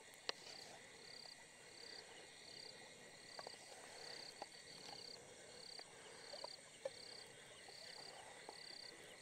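Faint night insects: a high chirp repeating about twice a second over a steady insect drone, with a few small clicks.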